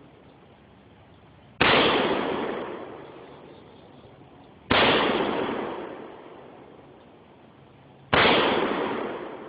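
AR-15 rifle firing three single shots about three seconds apart, each sharp crack trailing off over a second or so.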